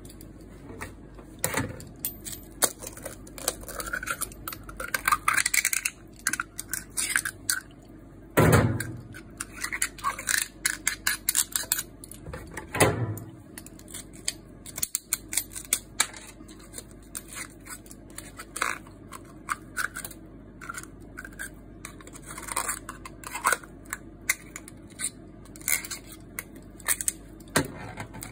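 A metal knife scraping and clicking against the ribbed shells of red clams (ark shells) as they are pried open and the meat cut out, with shells knocking on a stainless-steel tray. Irregular small clicks and scrapes throughout, with two louder knocks about eight and thirteen seconds in.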